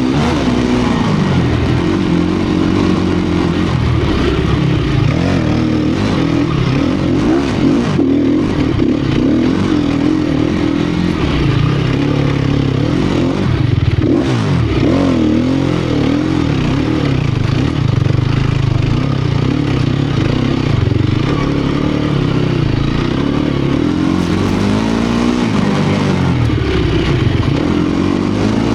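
2018 Sherco 250 SEF Factory's single-cylinder four-stroke engine revving up and down again and again as the throttle is worked off-road, with its pitch rising and falling every second or two.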